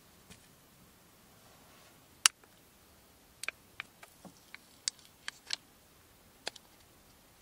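Sharp little plastic clicks and crackles from a single-serve cup of nabe soup concentrate being peeled open and squeezed out over a metal camping mug: one loud click about two seconds in, then a run of smaller clicks.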